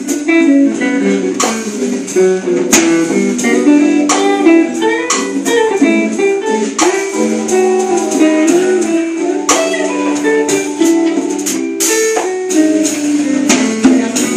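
Live jazz combo playing an instrumental break: a guitar takes the lead with a run of single notes over keyboard and drum accompaniment.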